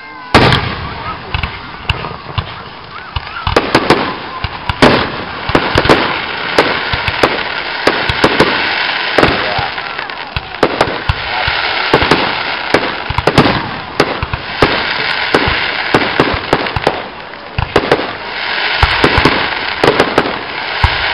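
Aerial fireworks going off in a dense, rapid string of sharp bangs and pops, several a second, the first loud bang coming about a third of a second in.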